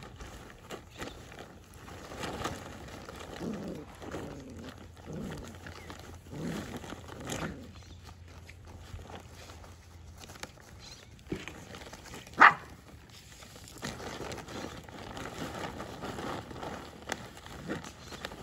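Australian Shepherd puppies, five weeks old, vocalizing in play with a run of short, low growly barks. About two-thirds of the way through, one sharp, loud yip stands out.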